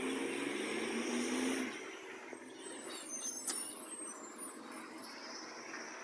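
Garbage truck engine running loud, its pitch rising slightly, then falling away after about a second and a half. The truck has an exhaust leak. A brief high squeal with a few clicks follows about three seconds in.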